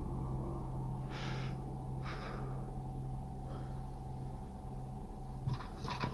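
Three short breathy exhales, about a second apart, over a steady low hum, followed by a few faint clicks near the end.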